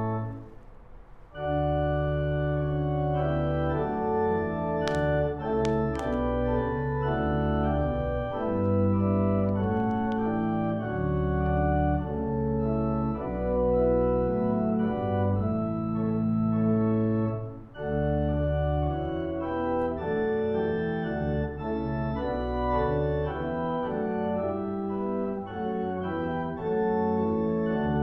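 Organ playing slow, sustained chords, with a brief break in the sound about a second in and another a little past the middle.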